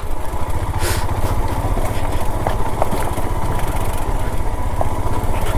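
Royal Enfield Himalayan's single-cylinder engine running with a steady, fast low thumping as the motorcycle climbs a rough, stony off-road track, with a brief knock about a second in.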